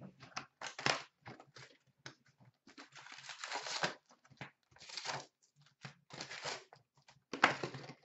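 Clear plastic shrink-wrap torn off a 2016-17 Upper Deck SP Authentic hockey card box and the cardboard box opened, its foil packs handled and stacked: an irregular run of crinkling and tearing.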